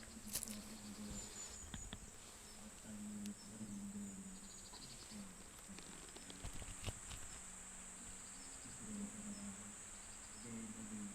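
Autumn insects chirring in a steady high-pitched drone, with faint short chirps above it. Underneath, a distant low monotone Buddhist prayer chant comes and goes in short held phrases.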